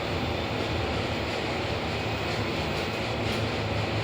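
IFE passenger lift car travelling, heard from inside the cab: a steady low rumble with an even hiss over it.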